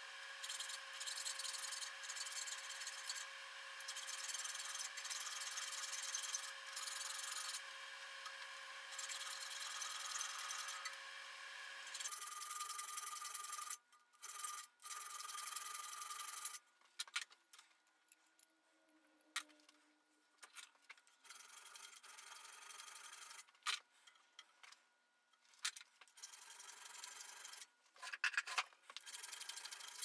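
Hand file rasping on a forged iron door handle held in a vise, filing away metal around the key pin so the bolt can pass through. The filing strokes run close and steady for about the first twelve seconds, then come as shorter, separate strokes with pauses between them.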